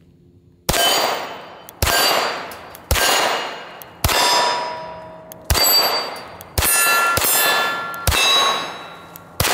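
Nine shots from a Dawson Precision Staccato P 9mm pistol with a muzzle brake, fired roughly a second apart, with two coming closer together near the end. Each shot is followed by the clang and ringing of a hit steel target.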